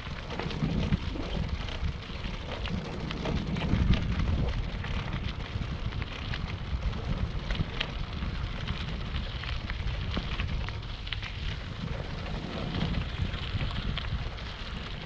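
Wind buffeting the microphone of a camera on a moving bike, a gusty low rumble, over the crackling hiss of tyres rolling on the road surface with many small ticks and rattles.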